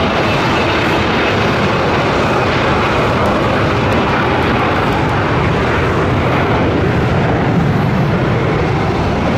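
Gulfstream G-V's two rear-mounted Rolls-Royce BR710 turbofans at takeoff power, a steady loud jet noise through the takeoff roll, rotation and lift-off.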